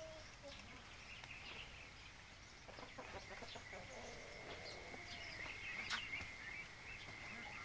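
Faint farmyard sounds: chickens clucking and small high calls, with a steady high-pitched whine coming in about three and a half seconds in. A single sharp click near six seconds in is the loudest moment.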